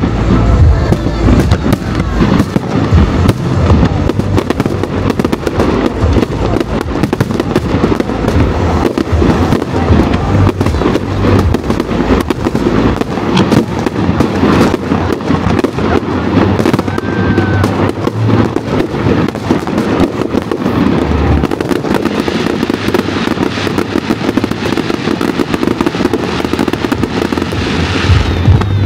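Fireworks display in full barrage: bursts and crackles following one another without a break, with deep booms underneath.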